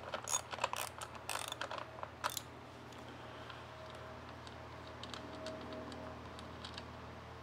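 A socket ratchet with a 10 mm socket clicks in short quick runs as it backs out the fuel-tank bolts on a Honda 2.3 hp four-stroke outboard. After about two and a half seconds it gives way to a few faint ticks.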